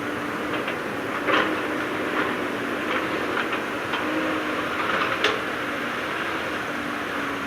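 Heavy earthmoving machinery running steadily, with a faint steady tone under the engine noise and several sharp metallic clanks, the loudest a little over a second in and about five seconds in.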